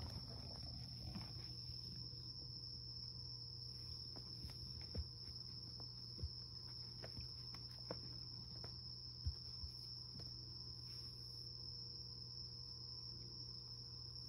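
A steady high-pitched whine over a low hum, with a few soft thumps scattered through the middle as the cat moves and paws on the rug.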